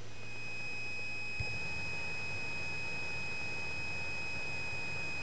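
Cessna 172 taxiing, heard through the cockpit audio feed: a steady high-pitched whine with fainter overtones over a low engine hum, with a single sharp click about a second and a half in.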